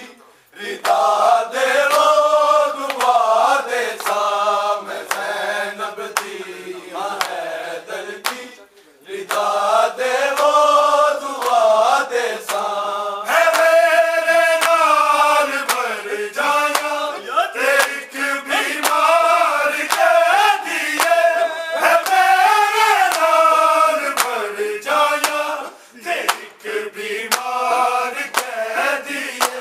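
A group of men chanting a noha, a Shia mourning lament, in unison, with brief pauses between lines. Sharp slaps of matam chest-beating sound along with the singing.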